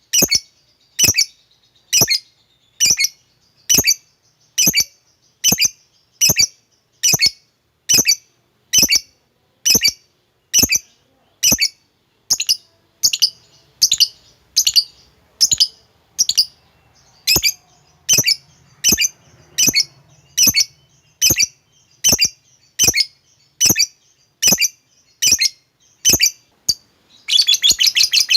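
Lovebird giving short, sharp chirps at a steady pace of a little more than one a second. About a second before the end it breaks into a fast rattling chatter, the 'ngekek' trill.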